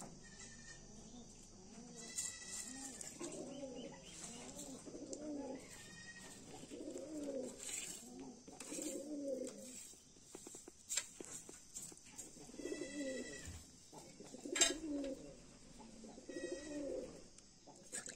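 Doves cooing over and over, in short groups of low rising-and-falling notes, with some higher chirps from another bird and a few small clicks.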